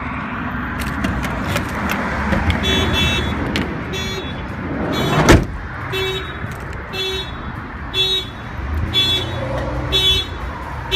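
Aftermarket AutoPage car alarm on a 2015 Chevrolet City Express van going off after a door is opened: a pulsing siren tone, about one and a half pulses a second, starting a couple of seconds in. A single sharp bang about five seconds in is the loudest sound.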